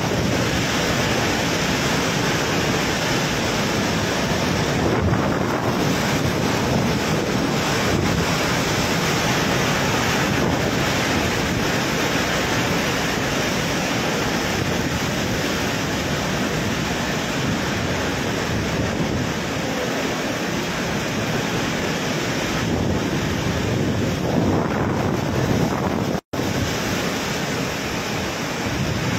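Super typhoon wind howling and torrential rain pouring, a steady dense noise, with gusts buffeting the microphone. The sound drops out for an instant a few seconds before the end.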